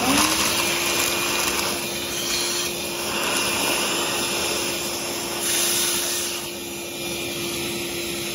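Vacuum cleaner starting up and running with a steady whine, its nozzle sucking loose swollen wood pellets and debris out of a pellet grill's hopper and auger tube.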